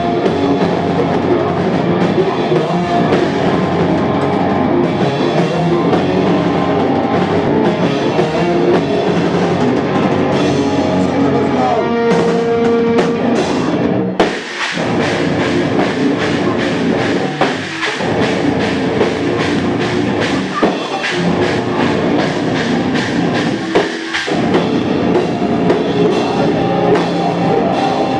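Hardcore band playing live: drum kit, bass and electric guitar in a loud, dense rock song, with a few brief stops and restarts partway through.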